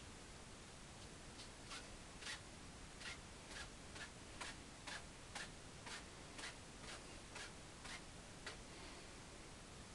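Faint strokes of a paintbrush on canvas, about fifteen short brushing strokes at roughly two a second, unevenly spaced, stopping about a second before the end.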